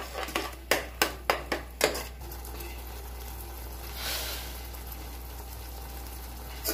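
A spatula knocking and scraping against a kadai in a quick run of strikes while a thick green masala paste is stirred, then the paste sizzling softly as it fries, left alone.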